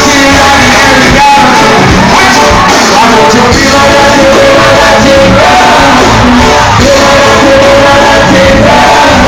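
Live island-style band playing loud, with a lead vocalist singing a melody over the band and holding long notes, the sound of a large hall around it.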